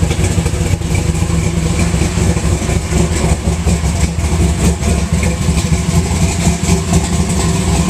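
Blown 427 small-block V8 with a 6-71 supercharger idling steadily.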